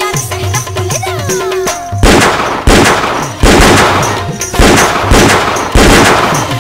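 Song music for the first two seconds, then about five handgun shots fired into the air, each loud crack followed by a long echoing tail.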